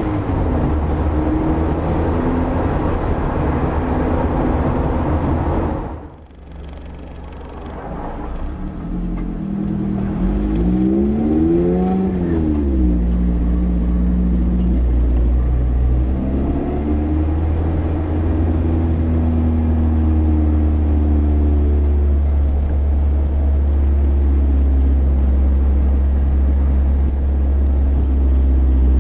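Mazda MX-5 ND's four-cylinder engine heard right at the tailpipes of an Ulter-Sport stainless centre-exit sports exhaust with its electric bypass valve closed (the quiet mode), while driving. The level drops sharply about six seconds in, the engine note swells and falls back around twelve seconds, and a steady low rumble runs under it through the later part.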